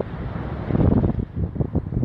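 Wind buffeting the phone's microphone: an uneven, gusty low rumble that grows stronger just under a second in.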